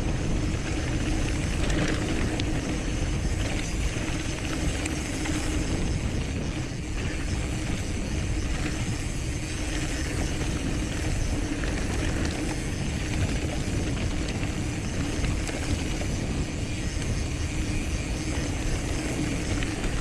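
Cross-country mountain bike riding down a dirt forest trail: a steady rumble of tyres on the ground, with the bike's mechanical rattle.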